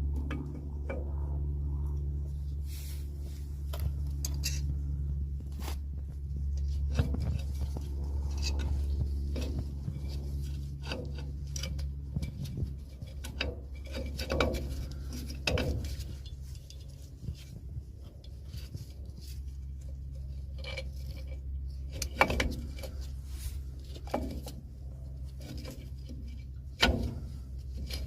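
Scattered metal-on-metal clinks and light scrapes of drum brake parts and hand tools being handled, over a steady low hum.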